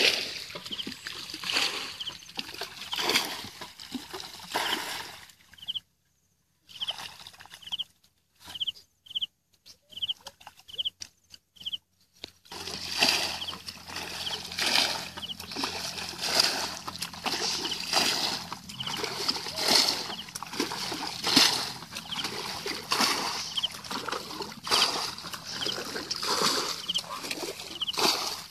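Shallow muddy water splashing and sloshing irregularly as someone wades and scoops with a bucket in a rice-paddy channel. A quieter stretch about a third of the way in carries a run of short high chirps, about two a second.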